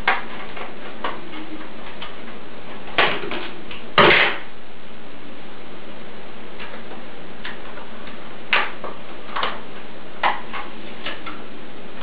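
Plastic packaging of a RAM stick being worked open by hand: scattered clicks and crackles, the loudest two sharp snaps about three and four seconds in, over a steady hiss.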